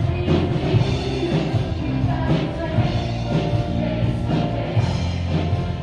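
A woman singing into a handheld microphone, accompanied by an electric keyboard with a steady drum beat.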